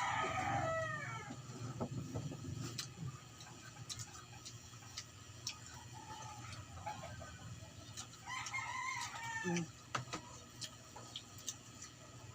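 A rooster crowing twice, once at the start and again about eight seconds in, each crow a drawn-out call that falls away at the end. Small clicks are scattered between the crows.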